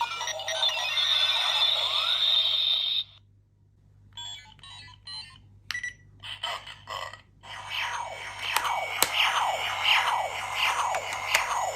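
Electronic sound effects from a Kamen Rider 555 toy transformation belt. A dense electronic buzz for about three seconds, a short gap, a string of short beeps, then a quick run of repeated falling zaps.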